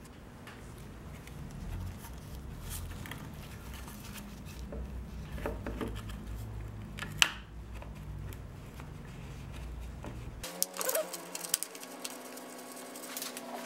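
Faint handling noise of motorcycle parts being fitted by hand: scattered small clicks and knocks, one sharper click about seven seconds in, over a low background rumble that cuts off abruptly about ten seconds in.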